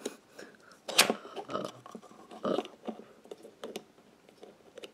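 Clicks and rattles of plastic plugs being handled and pushed together as a green extension cord is plugged in, with one sharp click about a second in.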